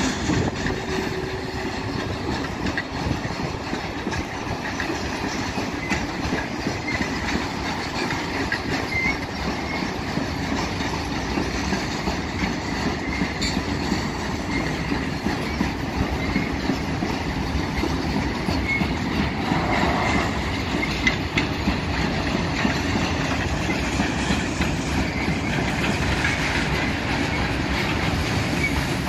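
Freight train of tank wagons rolling past at steady speed: a continuous rumble with the clickety-clack of wheels over rail joints and a few faint wheel squeals.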